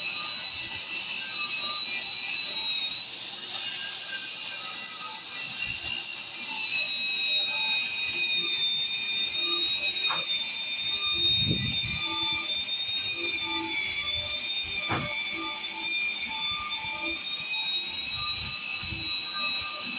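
Angle grinder fitted with a wire brush wheel, scrubbing rust off a steel pipe: a steady, high-pitched whine whose pitch wavers slightly as the wheel bears on the metal. Two sharp knocks come in the middle.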